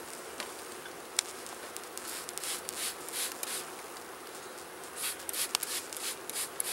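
A honeybee colony in an opened hive buzzing as a steady hum, a colony the beekeeper finds agitated. Over it come a sharp click about a second in, then repeated short rubbing and scraping noises.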